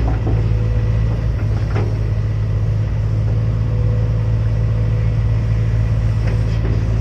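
Excavator's diesel engine running steadily at a constant pitch, with a couple of faint clanks.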